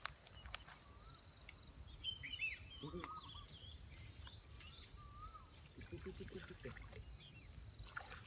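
Steady high-pitched insect chorus trilling without a break, with a few short whistled calls scattered through it.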